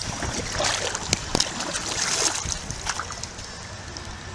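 Kayak paddle strokes in river water: splashing and dripping, with a couple of sharp clicks about a second in, and the splashing dying down near the end.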